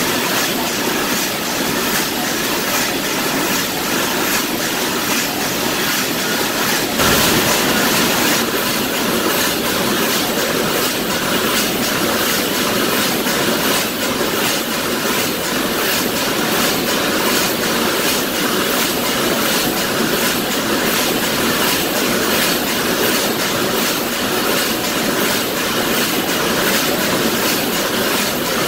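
SN FM200 stand-up pouch packaging machine running as it fills and seals almonds into pouches: a steady mechanical clatter of many fast clicks. A brief louder burst comes about seven seconds in.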